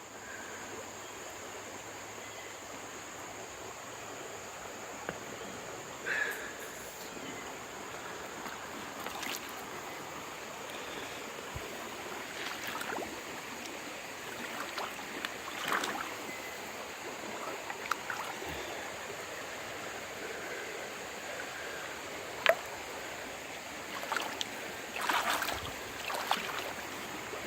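Creek water running steadily, high after heavy rain, with scattered light knocks and clicks and one sharper knock about three-quarters of the way through.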